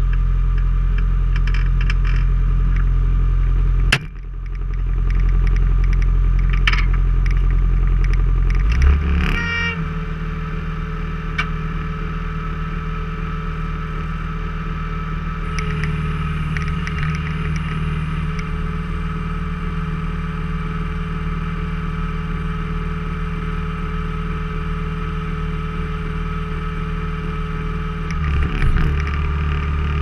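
Skid-steer loader's diesel engine running steadily, heard from the cab. There is a sharp clack about four seconds in, and the engine note changes about nine seconds in and again near the end.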